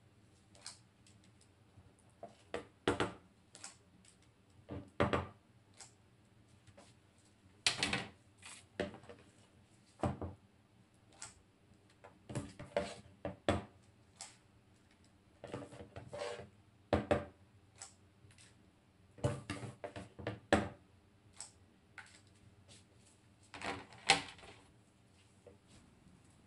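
Irregular clicks and clinks of a metal batter scoop against metal llanera molds as puto batter is scooped into them, a tap or short cluster of taps every second or two.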